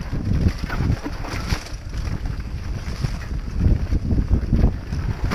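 Wind buffeting an action camera's microphone during a fast downhill mountain-bike descent, over a rough low rumble and rattle of tyres and bike on a bumpy dirt trail.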